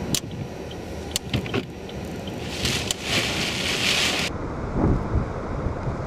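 Blizzard wind buffeting the microphone over the rumble of crashing surf, with a few sharp clicks in the first second and a half and a loud burst of hiss from about two and a half to four seconds in.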